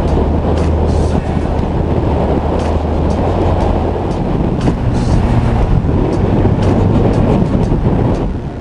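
Four-wheel-drive vehicle's engine running under load as it drives along a soft sand track, with heavy rumble picked up by a camera mounted outside on the vehicle and scattered knocks from the jolting. The engine note steps up in pitch about halfway through.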